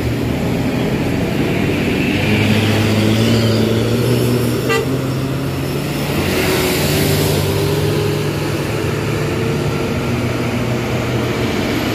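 Diesel engines of large intercity coaches running under load as they pull slowly uphill in heavy traffic, with horn toots mixed in.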